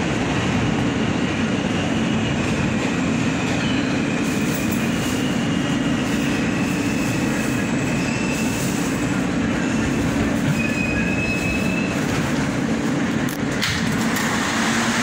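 Interior of an R160A New York City subway car running into a station: steady rumble of wheels on rail and a low motor hum, with brief high wheel squeals as the train slows.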